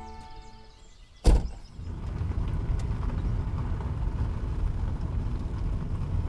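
A vehicle door shuts with a single loud thump about a second in. Then the steady low rumble of tyre and road noise begins, heard from inside the cabin of an electric van as it drives off.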